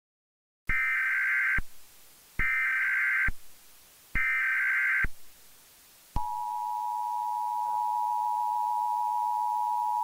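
Emergency Alert System tones: three bursts of about a second each of the SAME header's screeching data tones, about a second apart. About six seconds in, the steady two-tone EAS attention signal starts and holds.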